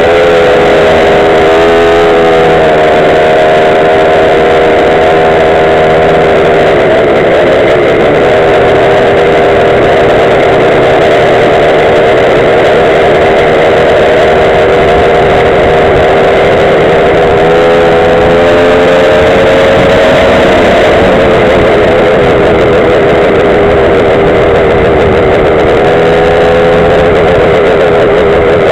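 Gas Go-Ped stand-up scooter's small two-stroke engine running under throttle at close range, its pitch rising and falling several times as the rider opens and eases the throttle.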